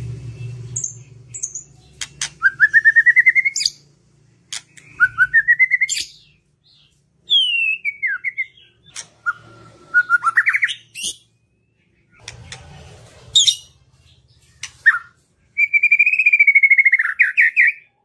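White-rumped shama singing in separate phrases: fast trills of pulsed notes climbing in pitch, a falling note in the middle, sharp clicks between phrases and a long trill near the end.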